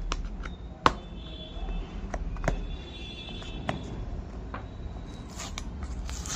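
Seal on a cardboard phone box being opened by hand: a sharp click about a second in, a few lighter clicks and scrapes of fingers and card, and a papery rustle near the end as the seal sticker is peeled.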